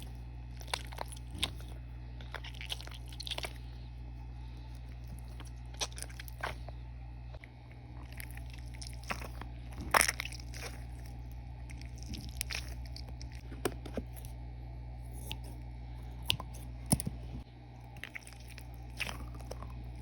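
Jiggly slime being squeezed out of a cut-open squishy stress ball by hand, making scattered short clicks and crackles, the loudest about ten seconds in, over a steady low hum.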